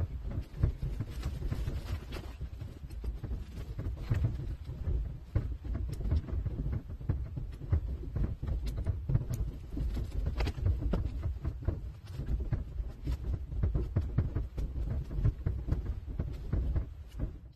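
Mule walking: irregular knocks of its hoof steps over a low, uneven rumble on the microphone.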